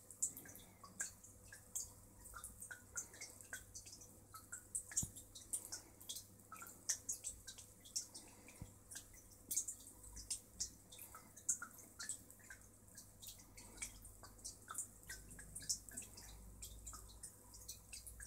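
Aquarium water dripping and bubbling: irregular small high-pitched plinks and pops, several a second, over a faint steady hum.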